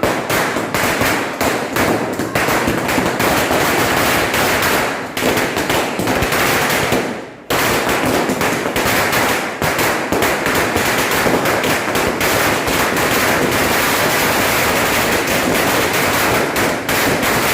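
Diwali firecrackers going off in a rapid, near-continuous run of sharp bangs, with a brief break about seven seconds in.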